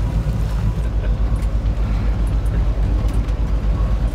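Charter fishing boat's engine running steadily, a low, even throb.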